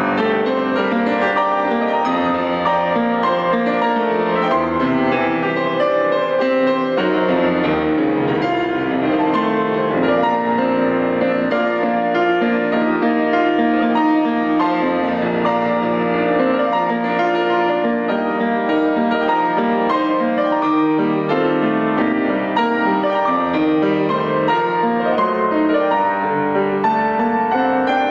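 Grand piano played solo, a continuous flow of notes at an even loudness.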